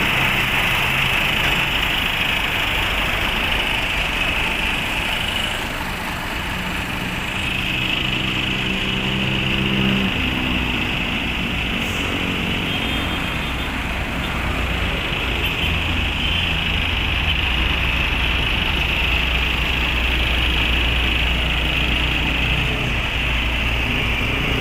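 Bus engine running steadily at low revs, its note dropping lower about ten seconds in, over a steady high hiss.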